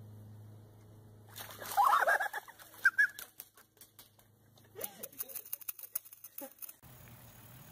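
Ducks quacking in a plastic kiddie pool, with splashing as a dog climbs out of the water. The loudest burst of calls and splashing comes about two seconds in, with more scattered quacks a few seconds later.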